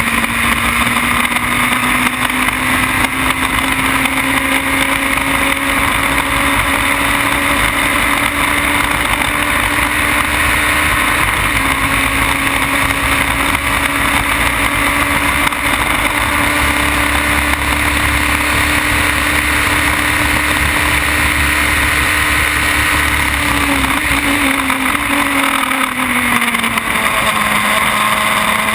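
Onboard sound of a Formula BMW single-seater's BMW motorcycle-derived four-cylinder engine at high revs, its pitch climbing slowly as the car accelerates down a straight. About 24 seconds in, the revs fall in a few quick steps and then hold steady at a lower pitch.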